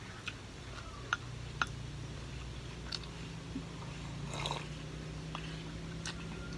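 Close-miked eating: wet chewing with a few sharp mouth clicks, and a longer wet squelch about two-thirds of the way through, over a steady low hum.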